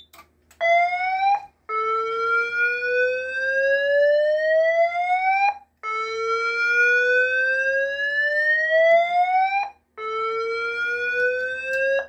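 All-evac signal from a Siemens Cerberus Pyrotronics MXLV voice fire alarm panel: a whoop tone that rises in pitch over about four seconds, breaks off, and starts again, the first sweep short.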